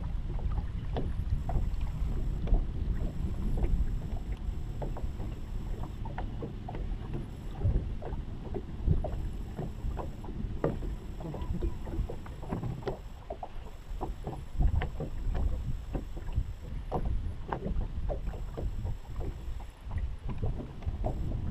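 Wind buffeting the microphone and water slapping against a bass boat's hull as a steady low rumble, with many light clicks and knocks scattered irregularly throughout.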